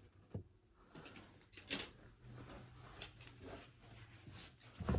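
Faint handling noises of seatbelt webbing being laid out on a work surface: a few light taps and rustles, with a faint low hum in the middle.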